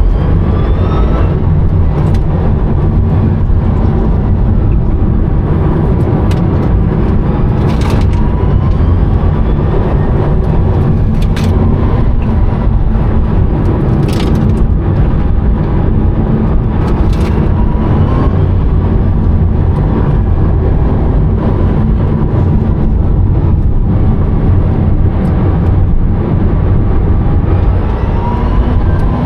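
Rimac Nevera electric hypercar heard from inside the cabin on the move: a loud, steady road and tyre rumble, with the electric motors' whine rising in pitch several times as the car picks up speed, and a few short sharp knocks.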